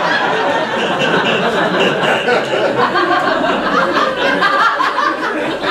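Audience laughter: many people laughing together, loud and sustained, easing off near the end.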